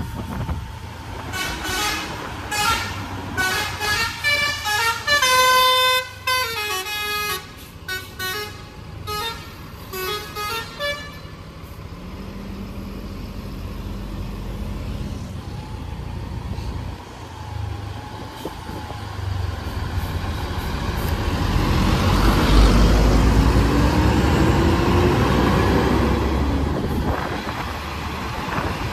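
A bus's multi-tone air horn sounds a rapid string of short toots at changing pitches for about the first ten seconds. Then a heavy bus engine runs with a low rumble that swells loudest around twenty-two seconds in, a whine rising in pitch as it pulls, before easing off near the end.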